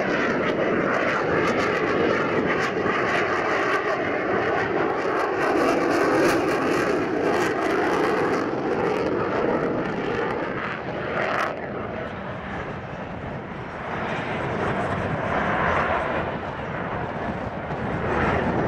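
Jet noise from a Boeing F/A-18F Super Hornet's twin General Electric F414 turbofans, loud and steady, easing off about twelve seconds in and then building again.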